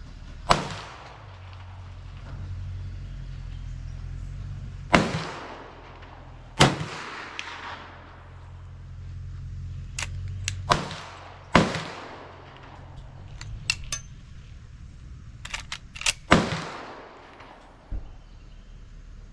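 .357 Magnum gunshots, six of them at uneven intervals, each trailing off in an echo, with fainter clicks between the shots.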